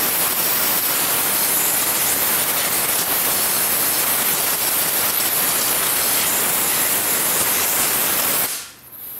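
Compressed-air blow gun on an air hose blasting a steady hiss into the open head of an industrial sewing machine, blowing dust and debris out of the mechanism. The blast cuts off near the end.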